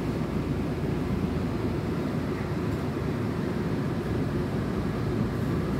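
Steady low hum and rumble inside a Tokyo Metro 18000 series subway car standing at the platform, from its onboard equipment and ventilation running.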